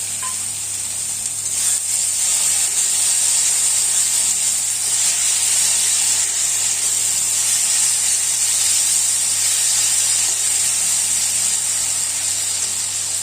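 Onion paste and ground spice pastes sizzling steadily in hot oil in a kadai as the masala is fried down.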